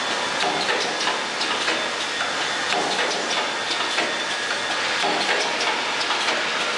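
Clothes peg assembly machine with vibratory bowl feeders running: a steady, dense clatter of many small clicks as plastic peg parts are fed and assembled.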